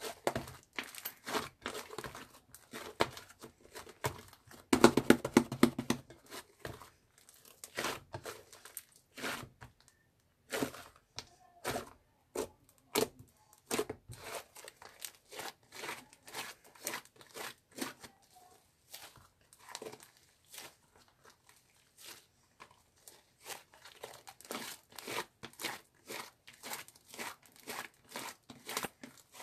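Irregular crinkling and crackling, a run of separate sharp clicks, densest and loudest about five seconds in.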